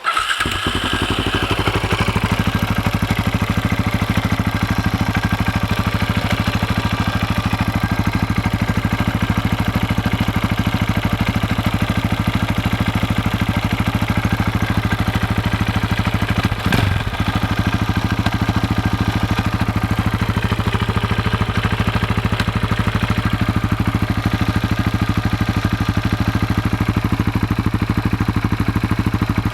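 KTM 640 LC4 single-cylinder four-stroke engine idling steadily, with a clacking noise ('tac, tac, tac') from the left side of the engine. The running dips briefly once about halfway. The owner has heard it blamed on the crankshaft or the clutch basket; the noise stops when a gear is engaged with the clutch pulled in.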